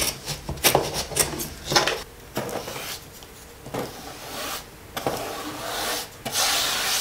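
Kitchen scissors snipping through the fabric binding of a wooden slat mat: a quick run of sharp cuts in the first two seconds. Then a paintbrush drags over wooden slats in long scratchy strokes, laying on green acrylic lacquer.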